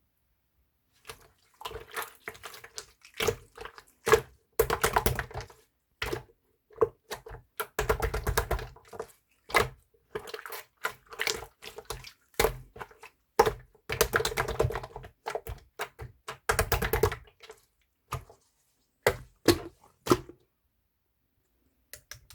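Hands kneading and poking slime, giving irregular bursts of sticky clicking and crackling popping, with short pauses between handfuls.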